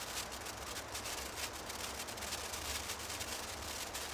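Japanese senko hanabi sparkler burning, its glowing bead throwing branching sparks with a fast, fine crackle over a steady hiss.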